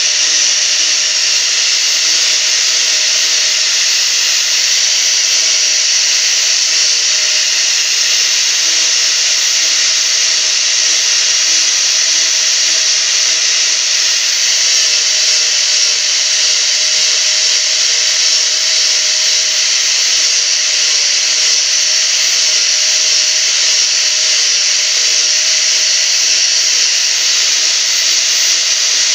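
Electric angle grinder running steadily, its disc grinding and shaping a small hand-held piece of wood: a constant motor whine over the hiss of the disc on the wood.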